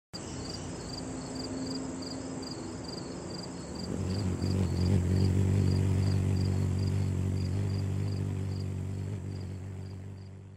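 Logo-intro sound design: a steady cricket-like chirping, about two to three chirps a second. A low droning hum swells in about four seconds in and fades away near the end.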